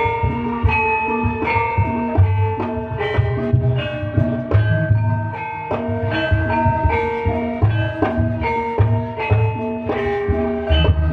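Live Javanese gamelan music: bronze kettle-gongs and metallophones ring out a steady stream of struck notes over deep drum strokes.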